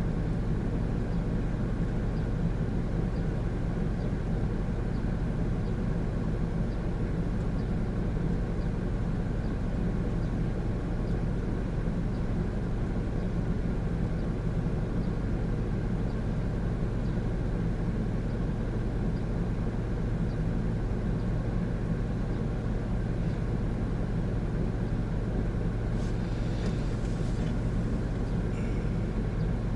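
Steady low drone of a 2017 Honda N-BOX Custom's 660 cc turbo engine and road noise, heard inside the cabin. A few faint clicks come near the end.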